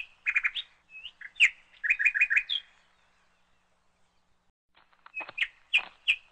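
Small bird chirping in quick runs of short, high notes, with a silence of about two seconds in the middle.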